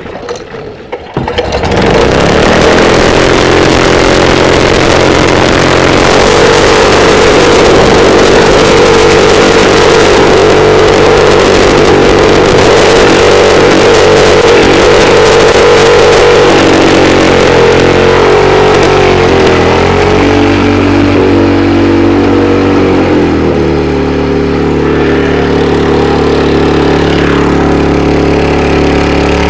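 An Alkon engine starts about a second and a half in and runs loud at high speed. In the second half its pitch wavers and drops, then it settles to a steady, lower running speed.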